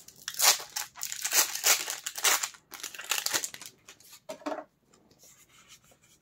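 Foil booster pack wrapper crinkling as it is handled and opened: dense crackling for roughly the first three and a half seconds, then fainter, scattered crinkles.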